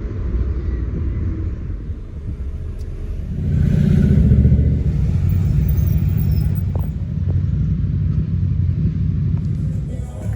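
Steady low rumble of a moving car, growing louder about three and a half seconds in, with a few faint clicks.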